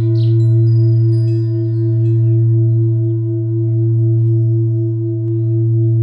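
Meditative background music built on a singing-bowl drone: a steady low hum with higher ringing tones that waver in a rapid, even pulse. A few thin high chirping tones sound over it in the first couple of seconds.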